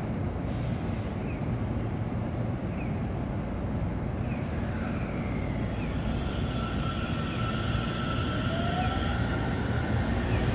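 JR Central 313 series electric train pulling away from a platform. A steady low rumble is joined about halfway through by rising electric motor whine tones, and it gets louder toward the end as the train gathers speed.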